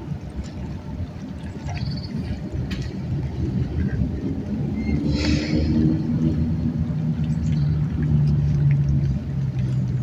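A low, steady engine hum that grows louder in the second half, with a brief rush of higher noise about five seconds in.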